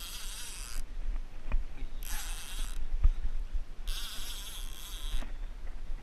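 Fishing reel whirring in three short bursts of about a second each, with a fish on the line. A couple of faint low knocks fall between the bursts.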